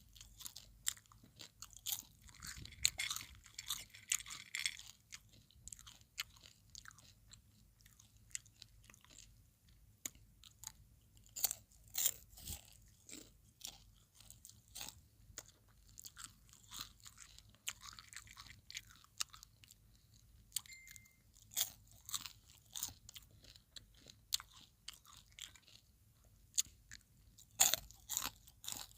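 Popcorn being chewed close to the microphone: a run of irregular crisp crunches and crackles, with denser crunching around 2 to 5 seconds in.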